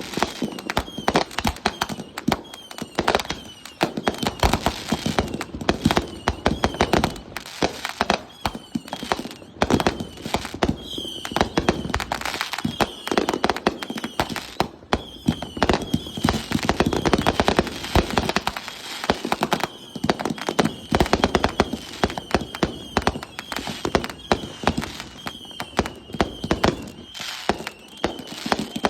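Consumer fireworks going off in quick succession, a near-continuous string of sharp bangs and crackles. A short high chirp repeats over and over through it.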